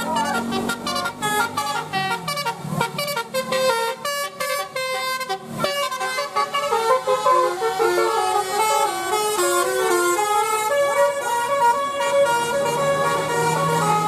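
Bus telolet horns, multi-tone air horns driven by a DAV melody module, playing a quick stepping tune. The notes are short and staccato at first, then longer and held from about six seconds in.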